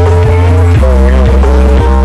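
Loud dance music played through a carnival sound-system rig (sound horeg), with very heavy bass under a wavering melody line.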